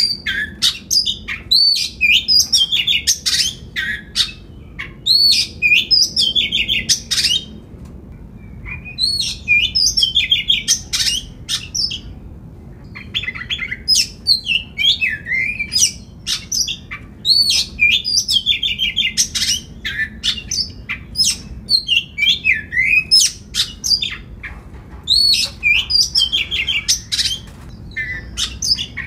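Oriental magpie-robin singing in full voice: loud runs of varied whistles, sweeping notes and sharp clicks, broken by a few short pauses.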